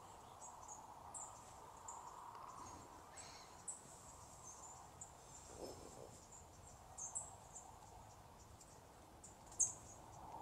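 Crickets chirping faintly: scattered short, high chirps over a quiet hiss, a few of them louder near the middle and towards the end.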